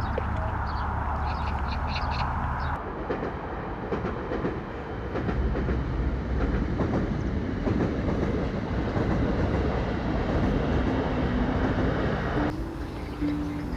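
A train passing by, rumbling along the track for about ten seconds, beginning about three seconds in and fading out shortly before the end.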